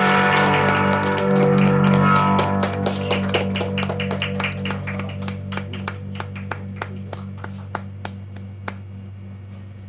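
Live rock band's guitar and bass holding a closing chord that rings and slowly fades, with sharp ticks about three times a second growing fainter.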